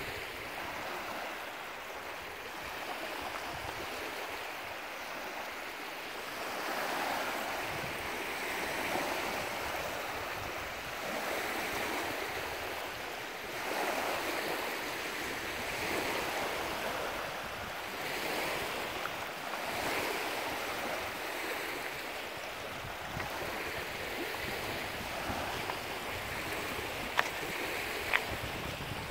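Small waves lapping and washing onto a pebble lakeshore in a steady wind, the wash swelling and easing every two or three seconds.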